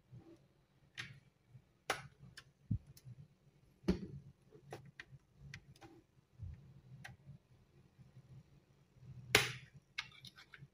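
Scattered small clicks and snaps from the plastic clips of an Asus TUF Gaming FA506N laptop's bottom cover being pried loose with a pry tool. The loudest snap comes about nine seconds in.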